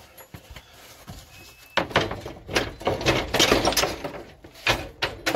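Front bumper of a 1997 Ford Expedition being pulled off the truck: a couple of seconds of scraping and clattering, starting about two seconds in, as it comes free, then a few sharp knocks near the end.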